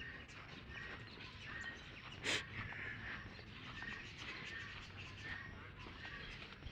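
A bird calling outdoors, the same short chirp repeated roughly every half second to a second. A single brief, loud noise breaks in about two seconds in.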